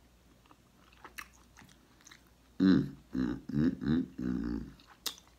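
A man's wordless vocalising: four or five short pitched hums or moans in a row starting about halfway through. A few faint mouth clicks come before them, and one sharp click near the end.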